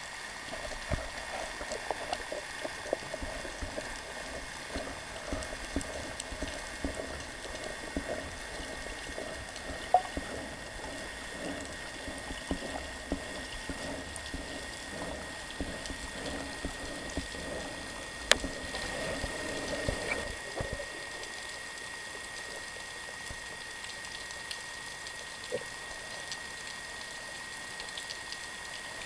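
Underwater ambience: a constant fine crackle of small clicks over a thin, steady high tone, with a couple of sharper clicks about ten and eighteen seconds in.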